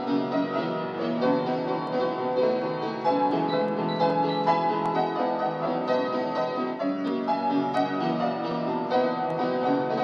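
Solo piano played with both hands, a continuous run of melody over chords.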